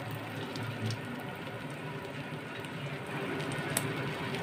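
Battered paneer pakoras deep-frying in hot oil in a kadhai: a steady sizzle with scattered crackles and pops.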